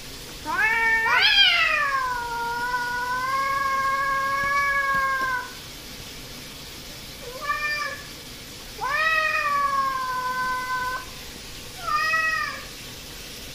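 Domestic tabby cats yowling at each other in an aggressive standoff. A long, drawn-out yowl rises sharply, then settles and holds for several seconds. It is followed by a short yowl, another long held one, and a short one near the end.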